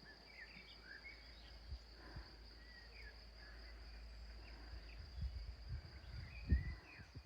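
Countryside ambience: a steady high insect trill like crickets, with short bird chirps over it. Low rumbling thumps on the microphone build toward the end, the loudest about six and a half seconds in.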